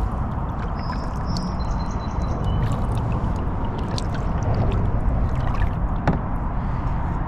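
Water gurgling and sloshing against a moving kayak's hull, a steady rushing noise heavy in the low end, with scattered light clicks and a few brief high thin tones in the first two seconds.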